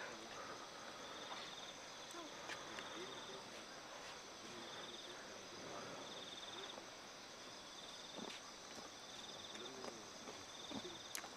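Insects chirping: a steady high-pitched chorus with a short trill repeating about once a second, and a few faint clicks.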